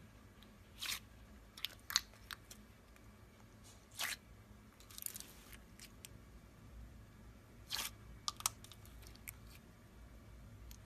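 Clear slime being squeezed and stretched by hand, giving faint, scattered sticky clicks and crackly pops in small clusters.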